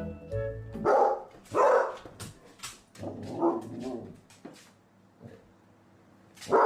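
Puppy barking playfully: two sharp barks close together about a second in, a longer stretch of barking around three seconds, then a single bark near the end.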